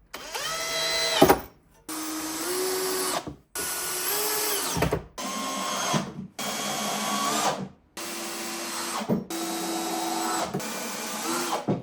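Cordless drill-driver running in about eight short bursts, each spinning up in pitch and stopping after a second or so: driving screws, most likely to mount drawer slides.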